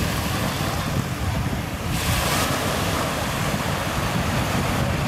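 Sea waves washing ashore, with wind buffeting the microphone as a steady low rumble; a brief louder wash of surf comes about two seconds in.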